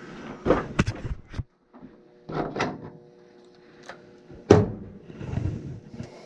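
A few sharp knocks and clatters of hard objects being handled, the loudest about four and a half seconds in, over a faint steady hum.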